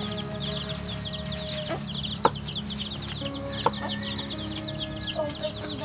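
Chickens peeping and clucking, with a dense run of rapid, high chirps over soft background music. A knife knocks twice on a wooden cutting board, about two and three and a half seconds in.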